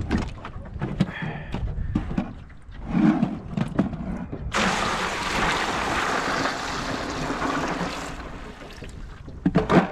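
Clunks of a cooler lid and handling, then about four and a half seconds in, water pours steadily into an ice-filled cooler for about three and a half seconds, mixing an ice slush to keep the catch.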